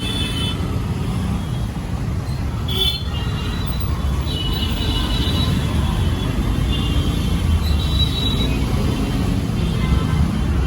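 Busy street ambience: a steady rumble of road traffic, with several short high-pitched horn toots over it.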